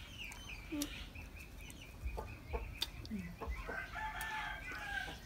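Chickens: a rooster crows once, a held call of about a second near the end, over a steady run of soft, quick high-pitched pulses, with a couple of short low clucks and a few small clicks.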